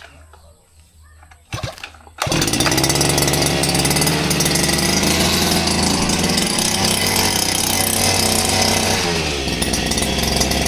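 A small pull-start petrol engine fires suddenly about two seconds in and then runs fast and steady, easing briefly near the end.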